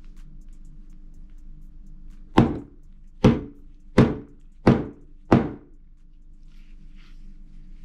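Five sharp shots from a toy BB pistol, fired one after another about 0.7 s apart, each with a short ringing tail.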